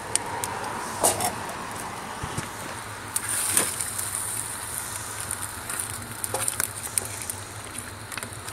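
A spoon stirring thick chili in a metal pot, knocking against the pot a few times. Under it runs a steady hiss with small crackles from the wood fire of the rocket stove and the simmering pot.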